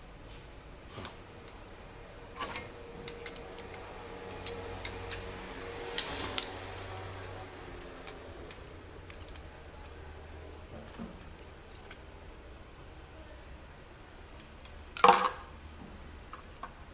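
Metal hand tools clicking and clinking against an engine's valve gear as the rocker-arm valve clearances are set with a feeler gauge and spanner. One clink rings on for a few seconds, and there is a louder clatter about fifteen seconds in.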